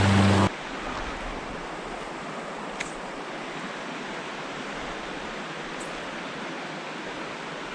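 Background music that cuts off abruptly about half a second in, then the steady rush of a small fast-flowing creek running high after heavy rain. A faint click just under 3 seconds in.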